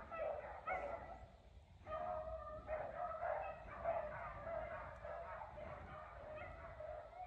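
A pack of beagles baying on a running rabbit's trail. Several faint voices overlap continuously: the hounds are in full chase.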